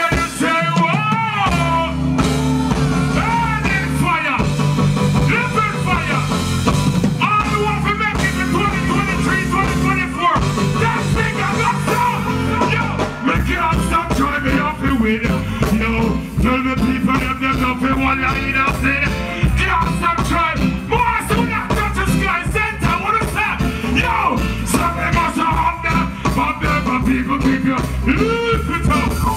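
Live reggae performance: a male singer's vocal through the stage PA over a band with a heavy, steady bass line and beat.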